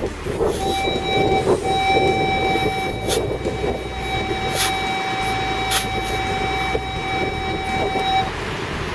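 A metal detector sounds one steady electronic tone for several seconds, with a short break near the start, signalling a metal target in the sand. A shovel bites into the sand a few times under it, with constant wind noise behind.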